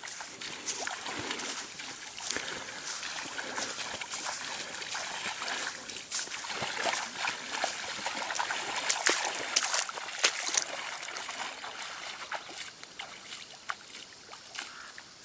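Kayak paddle dipping into river water, with irregular splashes and water dribbling off the blade, busiest around the middle and fading near the end.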